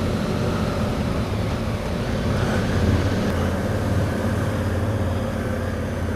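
Honda Africa Twin's parallel-twin engine running at low speed in town riding, a steady low hum with road and wind noise over it; the low engine note grows louder about three seconds in.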